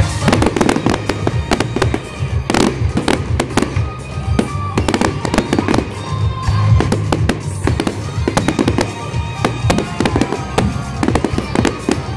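Fireworks bursting in rapid succession, many sharp bangs and crackles, over music from loudspeakers.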